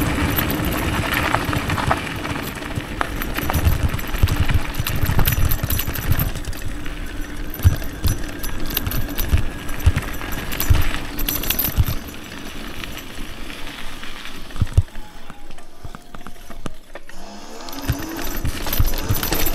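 Homemade 72 V, 3000 W electric downhill bike riding over gravel and a rough dirt track: tyre noise and frequent knocks and rattles from the bumps, under a steady motor whine. It goes quieter about three-quarters of the way through, then the whine rises again near the end as the bike speeds up.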